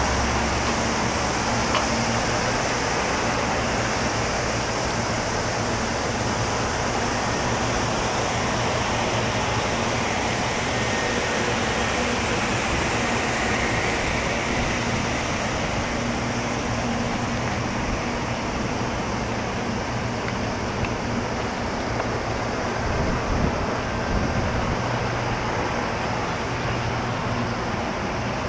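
Stationary red Meitetsu electric train's rooftop air conditioning and auxiliary equipment running, a steady whooshing noise with a low hum underneath.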